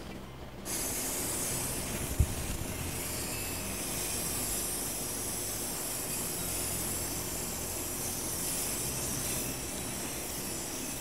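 Aerosol spray-paint can spraying gray primer in one long steady hiss that starts just under a second in and stops near the end. A short knock comes about two seconds in.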